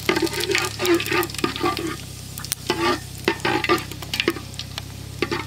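Steel ladle stirring cumin seeds in hot groundnut oil in a metal pot, scraping and clinking against the pot in bursts over the crackle of frying.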